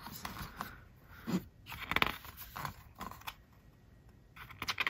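Pages of a K-pop album's paperbound photo book being turned and pressed flat by hand: irregular paper rustling and sliding, with a few sharper flicks near the end.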